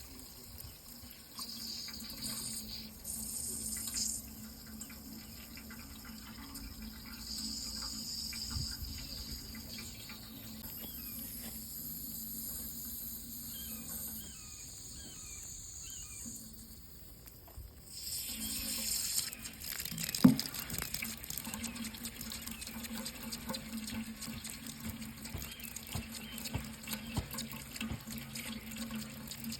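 Water running from a tap into a sink, with a low steady hum. The sound changes abruptly about eighteen seconds in, and a single sharp knock comes shortly after.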